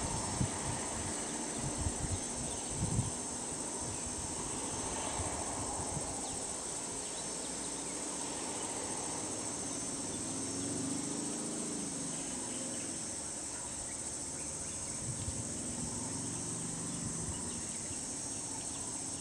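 Steady, high-pitched chorus of insects in roadside forest. A few low thumps come in the first three seconds, and a faint low engine hum swells and fades around the middle.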